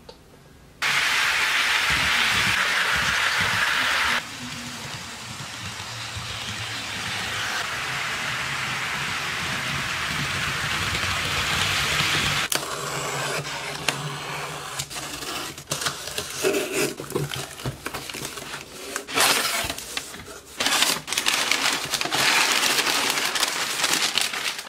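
HO-scale model locomotives running on track: a steady whirring rush with a low hum, which jumps up about a second in and drops back about four seconds in. About halfway through it gives way to irregular crinkling and rustling of brown kraft packing paper being pulled out of a cardboard box.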